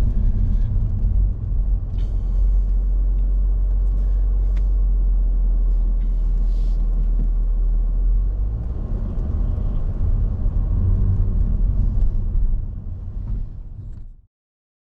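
Jaguar F-Type R's supercharged 5.0 V8 running with a steady low exhaust rumble and a few light clicks, fading and cutting off near the end.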